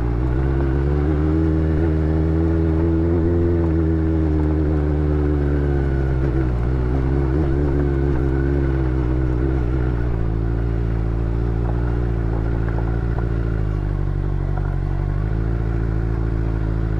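Benelli 600GT's inline-four engine running steadily while the motorcycle is ridden slowly over a dirt trail. Its pitch wavers a little with small throttle changes, dips briefly near the end and picks up again.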